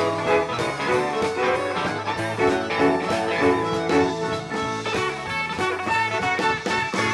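Live country band playing an instrumental passage with electric and acoustic guitars, drums and fiddle, a steady beat throughout.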